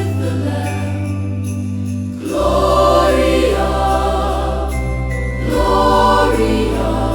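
Choral Christmas music: a choir holding wordless chords over a sustained low bass, swelling twice, with a light bell-like tinkle.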